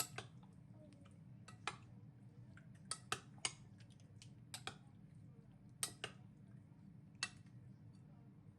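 About ten light, irregular clinks and knocks of household items being handled and set down, the loudest around three and six seconds in, over a low steady room hum.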